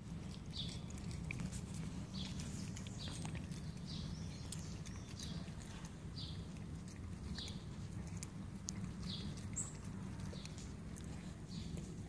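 Rottweiler puppy chewing and gnawing a watermelon wedge, with irregular wet clicks and crunches of the rind. This sits over a steady low rumble, and a short high chirp repeats about once a second.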